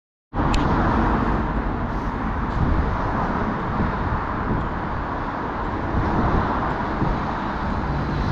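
Steady hum of road traffic with a deep rumble underneath, cutting in suddenly just after the start.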